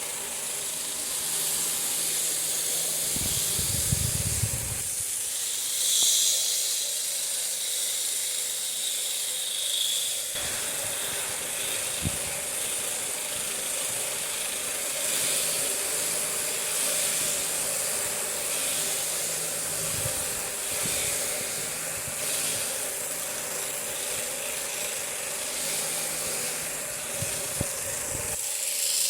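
Electric sheep shears running steadily as they clip through a sheep's fleece: a continuous hiss over a steady motor hum, with a few brief low thumps.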